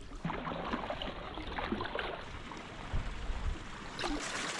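Water trickling and lapping around a kayak under paddle, with many small scattered ticks and a couple of soft knocks about three seconds in.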